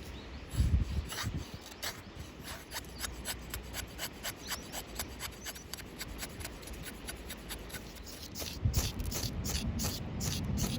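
Rhythmic scraping strokes, about four a second, getting quicker and louder near the end, like a blade or rasp working wood during fire preparation.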